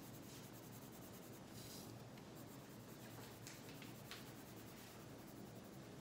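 Faint scratching of a coloured pencil shading back and forth on paper, with a couple of light ticks about halfway through.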